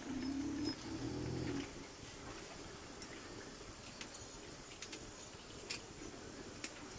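A domestic animal's low call in two parts over the first second and a half, followed by faint scattered clicks.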